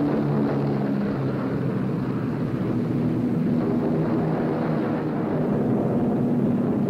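Propeller aircraft piston engines droning steadily, several engine tones humming together over a rushing noise.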